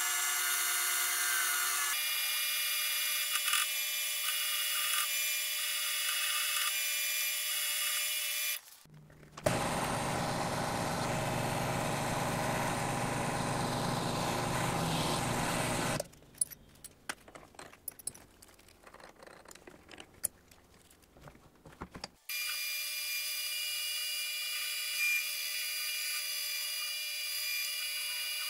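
Drill press boring through stacked 3/8-inch mild-steel plates, first with a twist bit and later with a step bit: a steady machine whine with the cutting noise through it. It drops out briefly near nine seconds and runs noisier until about sixteen seconds. A quiet stretch with scattered small clicks follows, then the steady drilling sound returns about twenty-two seconds in.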